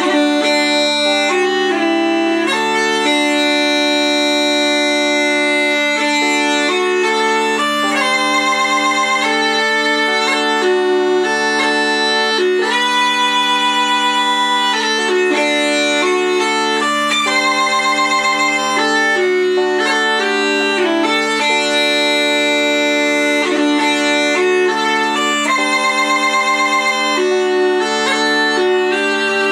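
Uilleann pipes playing a melody over a steady drone, with a few long notes held with a wavering vibrato.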